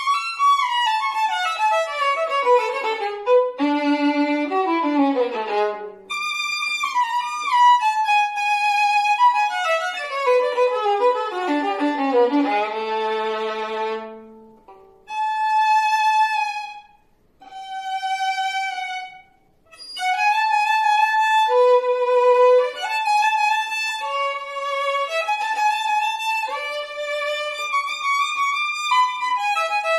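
Unaccompanied violin played with the bow: rapid descending runs and scale passages, then two long held notes each broken off by a short pause about halfway through, before quick passagework resumes.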